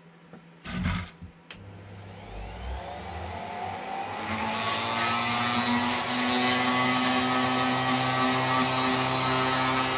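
A small electric rotary tool, either the Dremel or the pillar drill fitted with a tiny grinding bit, is switched on after a couple of clicks. It spins up with a rising whine and settles into a steady high-speed run, ready to grind the metal between the drilled holes.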